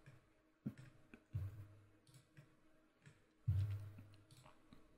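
Faint computer mouse clicks while a 3D light is dragged into place, with a couple of soft low thumps about a second and a half in and again past three seconds.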